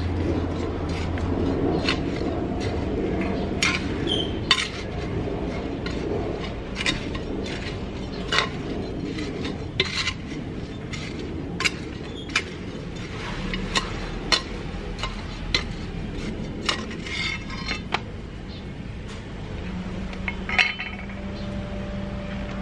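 Hands and then a small garden tool working through gritty, sandy potting mix in a large pot: a rustling, gritty scrape, strongest at the start, broken by irregular sharp clinks and scrapes about once a second as the tool digs in.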